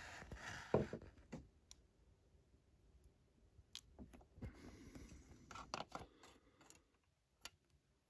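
Faint pouring of liquid agar from a glass jar into plastic petri dishes, with scattered light clicks and taps of the plastic dishes and lids.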